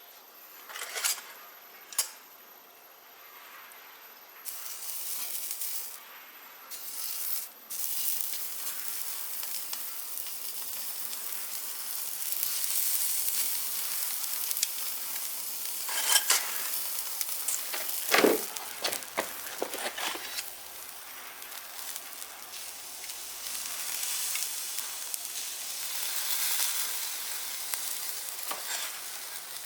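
Meat sizzling on a small stainless steel barbecue grill. The sizzle comes in two short spells, then runs steadily from about eight seconds in, with a few clicks near the start and several knocks about two thirds of the way through.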